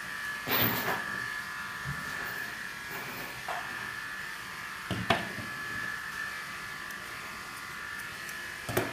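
Steady electric buzz with a high whine from a small motor running throughout, with two sharp clicks, one about half a second in and one about five seconds in.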